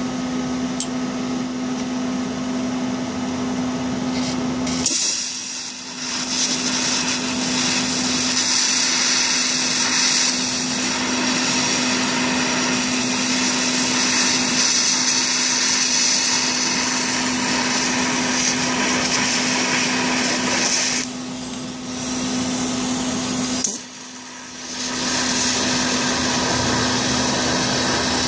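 A steady hum, then a TIG welding arc strikes about five seconds in and runs with a steady hiss while an AN -6 fitting is welded onto a cut fuel rail. The arc dips briefly, then cuts out for about a second near the end and restarts.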